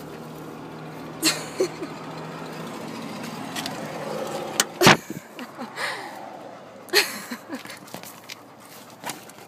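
Car engine humming steadily, heard inside the car, until a loud knock about five seconds in, after which the hum is gone. A few short high squeaks come before and after the knock.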